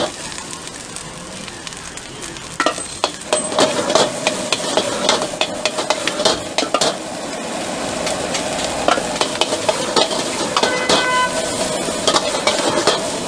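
Fried rice sizzling in a wok over a gas flame, with a metal ladle and spatula scraping and clanking against the wok as it is stirred and tossed.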